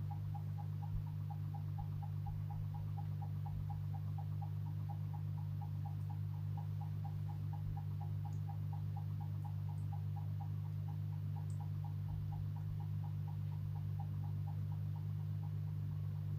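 Hitachi RA-36NV window air conditioner running with a steady low hum, over which a short squeak repeats evenly about five times a second: the abnormal noise the unit is making.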